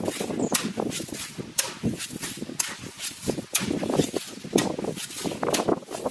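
Hand hoe chopping and scraping into gravelly sand as a pit is dug, with a sharp strike about once a second and lighter scrapes between.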